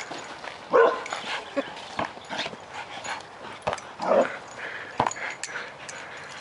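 Two dogs vocalising in rough play as they go after a tetherball, with two louder outbursts about a second in and about four seconds in, and sharp knocks scattered throughout.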